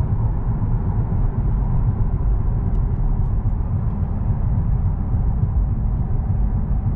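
Steady low road and engine rumble heard inside the cabin of a moving 2021 Cadillac CT4 Sport, with no change in pitch.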